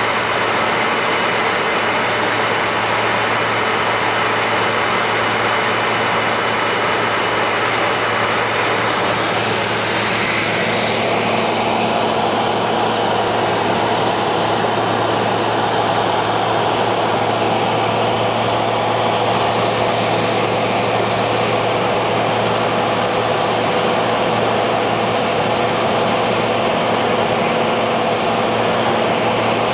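Cessna floatplane's piston engine and propeller droning steadily, heard from inside the cabin in flight. The tone of the drone shifts slightly about ten seconds in.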